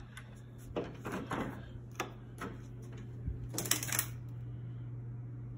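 Clicks and knocks of a door's knob and latch being worked and the door swung open, with handling noise, over a steady low hum. The clicking stops about four seconds in.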